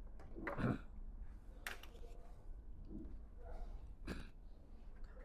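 Faint handling of an Ethernet cable's RJ45 connector parts, with two sharp clicks a couple of seconds apart as the head is fitted back onto the cable.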